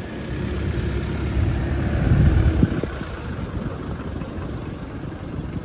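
A motor vehicle's engine going by on the street, swelling to its loudest a little past two seconds in and then fading.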